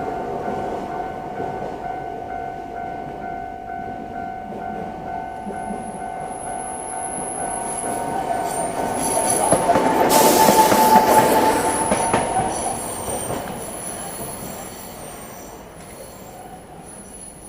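A Type 8500 Toden Arakawa Line tram passes over a level crossing. It grows louder to a peak about ten seconds in, with high-pitched wheel squeal, then fades away. During the first nine seconds the crossing's warning bell pulses about twice a second.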